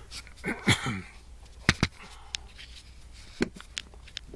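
Handling noise while working on attic wiring: a brief rustle near the start, then a few sharp clicks and taps of hands and tools on wires and fittings.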